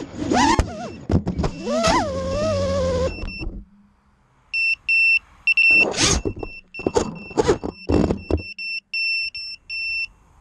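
FPV quadcopter's motors whining, the pitch rising and falling with the throttle, with several sharp knocks before the sound cuts out about three and a half seconds in as it crashes. After a short pause the quad beeps in repeated short high beeps, and its motors spin up in four or five short bursts as it flips itself back over in turtle mode.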